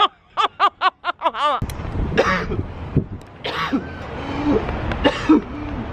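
A man coughing hard, several harsh breathy coughs about a second and a half apart, after a quick run of short vocal sounds.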